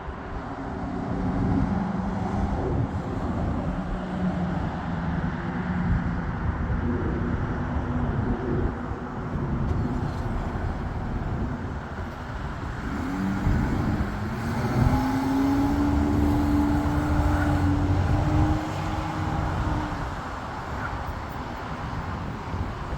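Engines running steadily against a constant rumble. About thirteen seconds in, one engine's tone rises in pitch and holds, the loudest part, before easing off near the end.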